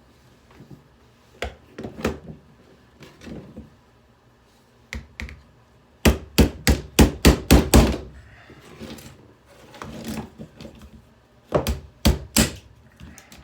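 Repeated hammer blows on a hair dryer as it is smashed apart: a few scattered knocks, then a fast run of about eight strikes, roughly four a second, around six seconds in, and three more near the end.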